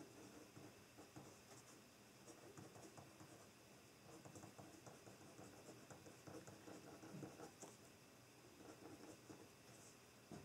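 Faint scratching of a pen writing on notebook paper, in short irregular strokes and taps.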